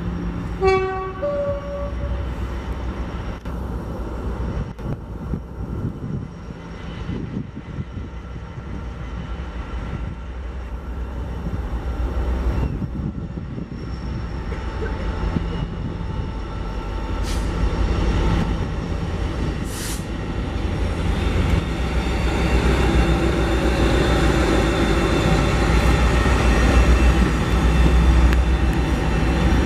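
Train running through the station, its rumble growing steadily louder, with hiss building over the last third as it draws near. About a second in there is a brief two-note rising tone.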